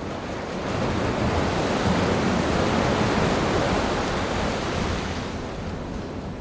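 A loud rushing noise with no distinct tone or strokes, swelling up about a second in, holding, then easing off near the end.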